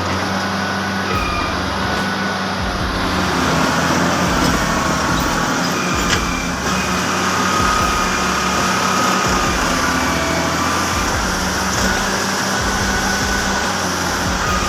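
Engine of a heavy vehicle running steadily, with a faint whine that comes and goes over it.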